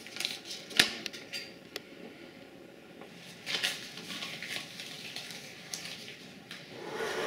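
A small paper packet being crinkled and torn open by hand: sharp crackles and clicks in the first two seconds, the loudest a little under a second in, then more crinkling about three and a half seconds in.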